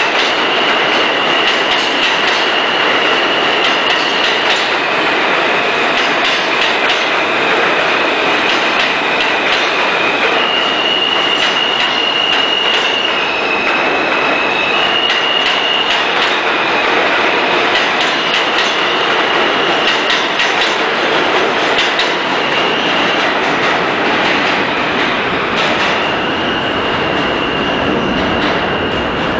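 New York City subway train passing on the near track: a steady rush of wheel and rail noise, with the wheels squealing in high steady tones that shift in pitch several times and rail joints clicking. The noise eases a little near the end as the last car goes by.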